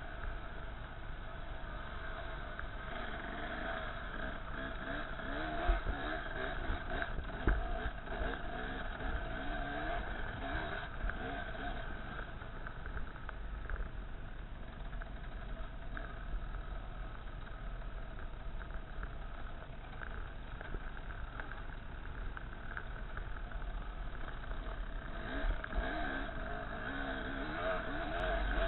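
Off-road trail motorcycle engine running while riding, its note rising and falling with the throttle over a rough dirt track, with a steady low rumble and a couple of thumps early in the ride.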